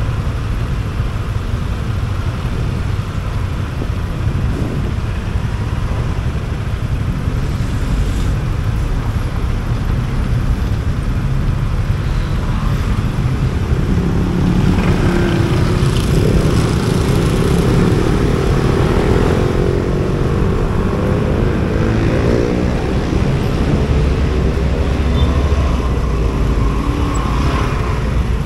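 Motorcycle riding in city traffic: steady engine and road noise. About halfway through, an engine speeds up and its note climbs for several seconds.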